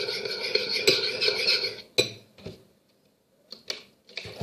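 A spoon stirring slime mixture in a container, scraping round it in quick rhythmic strokes; about two seconds in a sharp clink and the stirring stops, leaving only a few faint knocks.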